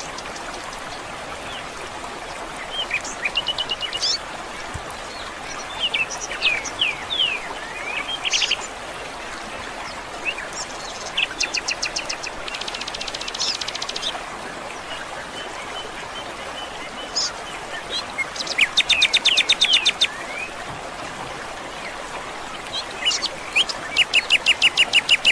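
Several songbirds chirping and calling in short whistled notes, with a rapid trill of quickly repeated notes twice, about 18 seconds in and again near the end, over a steady background hiss.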